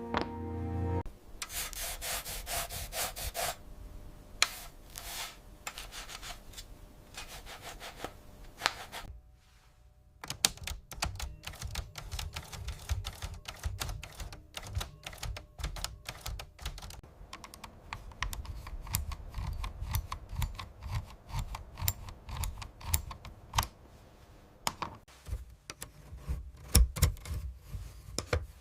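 Manual typewriter clacking: quick, irregular strikes of keys and typebars, with a short pause about nine seconds in.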